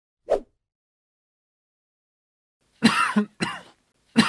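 A person coughing: two rough coughs in quick succession about three seconds in, with a third starting near the end. A single short sound comes just after the start.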